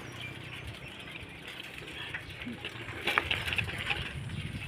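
Rural outdoor ambience with small birds chirping in short, repeated calls over a steady background hiss.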